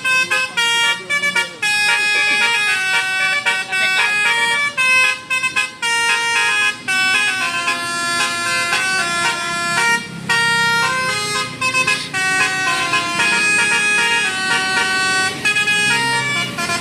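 A tour bus's 'telolet basuri' musical horn playing a quick melody of short, stepped notes.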